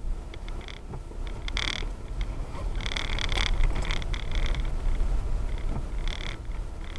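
Low rumble of a car driving slowly over a dirt yard, heard from inside the cabin. Over it, a high buzzing call comes and goes in spells, strongest about three seconds in.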